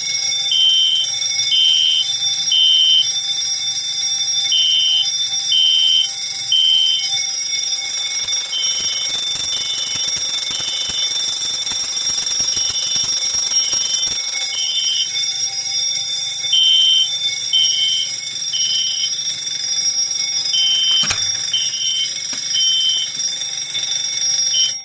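A Potter MBA-6-24 six-inch vibrating fire alarm bell rings continuously, together with a System Sensor SpectrAlert Classic horn sounding the temporal-3 evacuation pattern: three beeps, a pause, repeating. Both are really loud.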